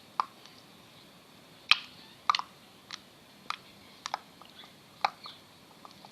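Freshly made clear-glue slime being squeezed and worked by hand, giving sharp, wet clicks and pops at irregular intervals, roughly one every half second to second.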